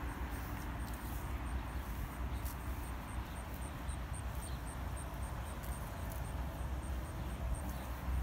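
Backyard outdoor ambience: a steady low rumble and hiss, with a faint high-pitched chirp repeating evenly, about three times a second.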